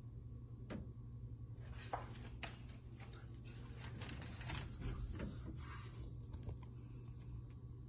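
Knocking and cracking from a condo ceiling: one sharp knock just under a second in, then a rapid, irregular run of knocks and crackles for about four seconds, over a steady low hum.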